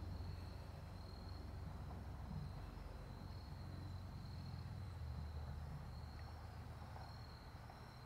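Insects chirping: a high, thin trill repeating about once a second, over a low steady rumble.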